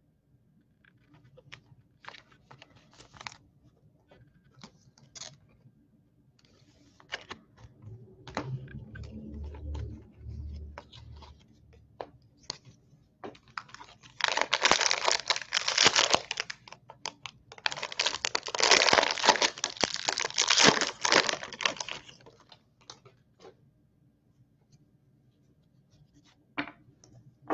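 A foil trading-card pack being torn open by hand: two long stretches of tearing and crinkling about halfway through, with scattered light clicks and rustles of cards being handled before and after.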